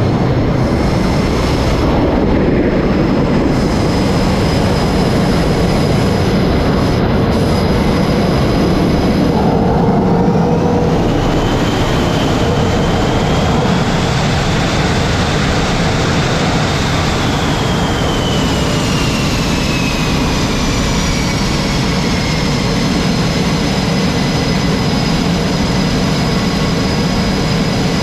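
Jet engines running on an aircraft carrier flight deck: a loud, steady roar. A whine rises about ten seconds in, holds for several seconds, then falls away.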